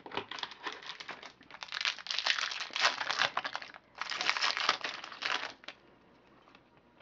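Plastic trading-card pack wrapper crinkling as it is handled and torn open, in two spells, stopping a little before the end.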